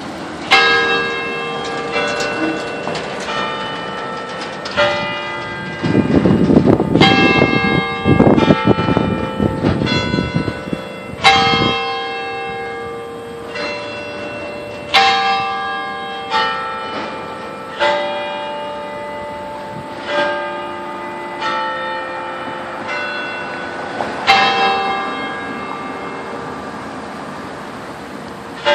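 Carillon of cast bronze bells made by Petit & Fritsen, playing a slow sequence of notes at changing pitches, each struck and left ringing as it dies away. A few seconds in, a loud low rumbling noise runs under the bells for about five seconds.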